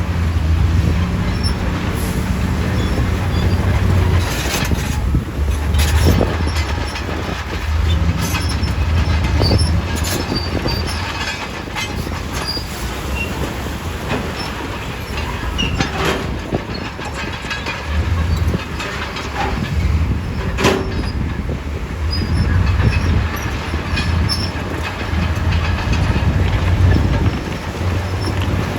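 Komatsu D68E crawler bulldozer at work: its diesel engine runs, loading up and easing off every few seconds, over a clatter of steel tracks and knocks of rock.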